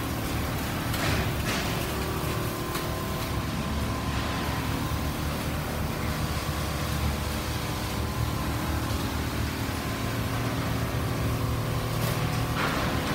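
Steady mechanical din of a hall full of Richpeace single-head quilting machines running, a continuous hum with several steady tones. Brief rushing swishes about a second in and again near the end.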